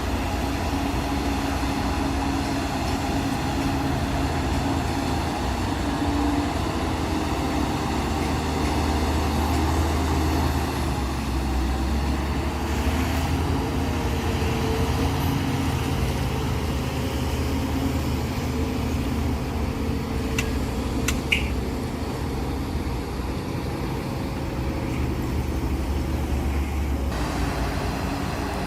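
Heavy diesel earthmoving machinery running steadily with a continuous engine hum, with a couple of sharp clicks about two-thirds of the way through.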